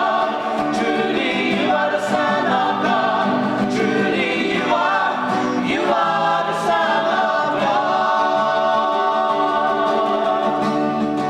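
A group of voices singing a cappella in harmony, holding long sustained notes of a sung scripture reading.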